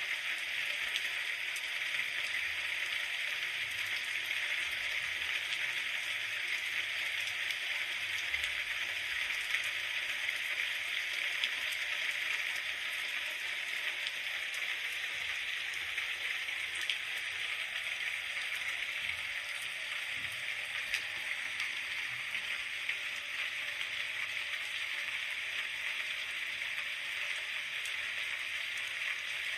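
Steady rain falling, a continuous even hiss flecked with faint drop ticks.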